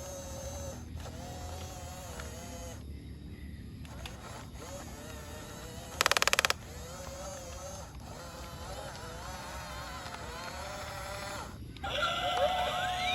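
Small electric motors of a remote-control model excavator whining as it works, the pitch wavering up and down. About halfway through comes a loud half-second rattle of rapid clicks. Near the end a louder whine with rising, sweeping pitch joins in.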